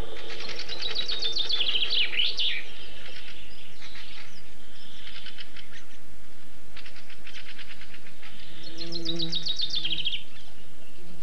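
A songbird singing: a quick run of repeated high notes that falls in pitch and ends in a flourish, sung twice about eight seconds apart, with other short repeated bird notes in between.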